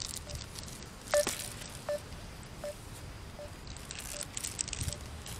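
Outgoing phone call ringing unanswered: short electronic beeps at one steady pitch, about one every three-quarters of a second. Light rustling sounds alongside.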